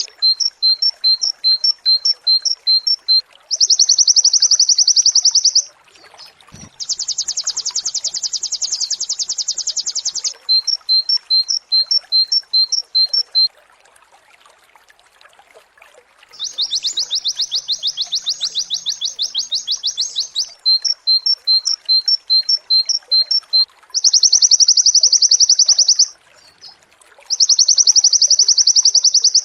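White-eye (pleci) singing in repeated rapid-fire 'nembak' bursts: dense, high trills lasting two to four seconds, alternating with runs of quick two-note chirps at about three a second.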